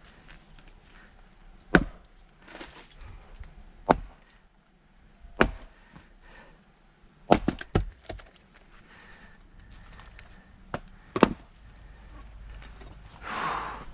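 Firewood being split by hand: a series of sharp strikes and cracks of splitting wood, spaced a second or two apart, with a quick run of three about halfway through. A short rush of noise comes near the end.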